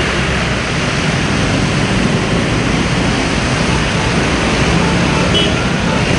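Traffic driving through a flooded road: a steady rush of water from tyres splashing through standing water, with the hum of motorcycle, scooter and auto-rickshaw engines underneath.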